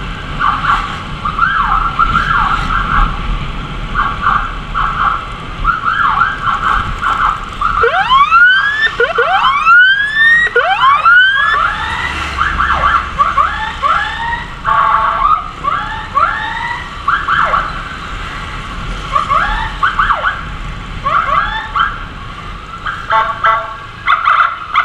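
Emergency siren sounding in bursts of short, quick yelps, with a run of long rising whoops about eight to eleven seconds in, over road noise from the moving motorcycle.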